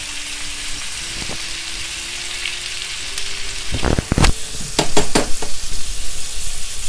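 Lamb steaks sizzling steadily in hot oil and butter in a frying pan as they are seared brown. About four to five seconds in, a run of sharp clacks as metal tongs knock against the pan while the steaks are turned.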